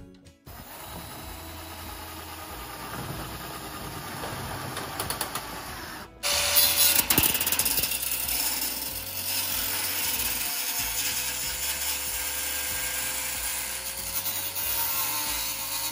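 Corded angle grinder cutting through a corrugated metal roofing panel: it cuts in suddenly about six seconds in and runs on with a harsh, loud grinding hiss over a steady motor whine.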